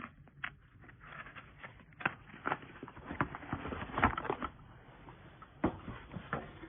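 Cables, adapters and their plastic packaging being handled: irregular rustles, crinkles and light clicks, the sharpest about four seconds in.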